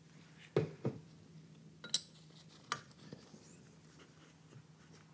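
A few light metal knocks and clinks as valves are slid into an aluminium LS1 cylinder head and the head is handled on the bench: two knocks close together about half a second in, then single clinks near 2 s and 3 s.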